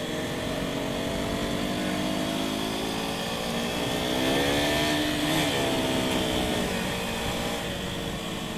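Motorcycle engine running, its pitch climbing over a few seconds as it revs up, peaking about five seconds in and then dropping away.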